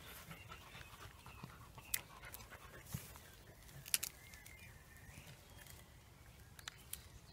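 Faint sounds of Cavalier King Charles Spaniel puppies at play, with a few light clicks, the sharpest about two and four seconds in.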